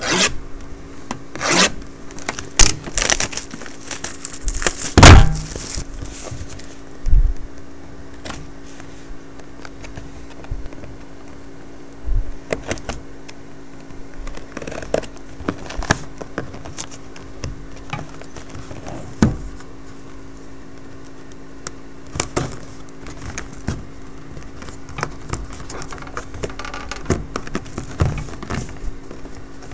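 Crinkling, scraping and knocking of a sealed trading-card box being opened by hand: wrapper torn off and cardboard and packs handled in irregular bursts, over a steady low hum.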